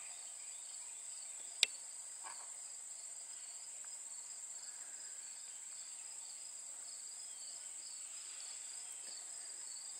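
Steady insect chorus: a continuous high-pitched buzz with a fast pulsing trill just below it. A single sharp click about one and a half seconds in.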